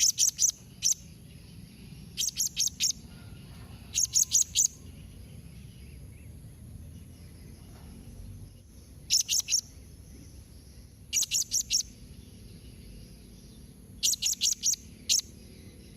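Blue-crowned hanging parrot (serindit) calling: groups of three to six sharp, high chirps in quick succession, six groups in all, with a longer pause in the middle. A faint steady high hiss runs underneath.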